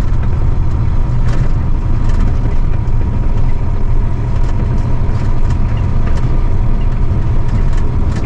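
Semi-trailer truck's diesel engine running steadily under load on a rough dirt road: a continuous low rumble with a thin, steady high whine over it.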